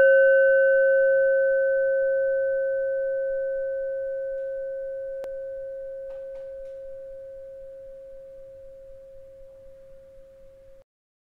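One struck meditation bell tone ringing out and fading slowly for about ten seconds, then cut off suddenly near the end. A faint click about five seconds in.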